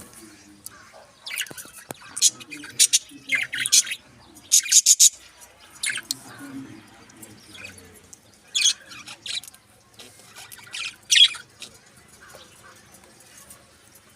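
A mixed flock of pet budgerigars and finches chirping and squawking in short, loud high-pitched bursts, several clusters of calls a few seconds apart.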